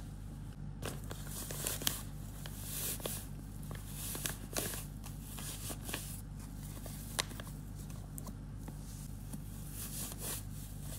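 Tape-laminated paper crinkling and rustling in the hands as cotton stuffing is pushed into its pocket, in many small irregular crackles.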